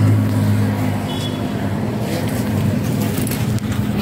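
A motor vehicle engine running steadily close by, a low hum that eases after about a second, amid street traffic noise.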